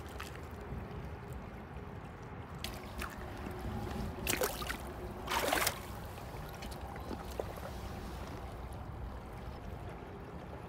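Steady rush of a shallow river run, with two brief splashing sounds about four and five and a half seconds in.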